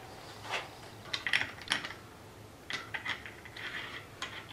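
Light metallic clicks and taps in several small clusters as small steel parts of a 1940 Hercus lathe's cross slide are handled and fitted into place.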